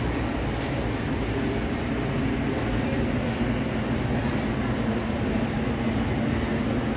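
Busy market crowd chatter: many voices blend into a steady background din, with a few faint ticks.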